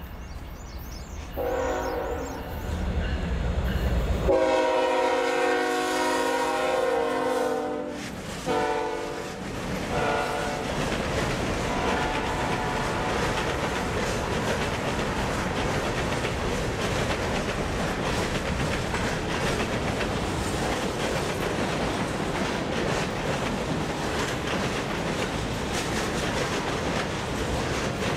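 Freight locomotive horn on the lead GE ES44DC sounding several blasts over the engine's low rumble as it approaches. The longest and loudest blast is held about four seconds, with a short one after it. From about ten seconds in, the freight cars roll past with steady wheel clatter on the rails.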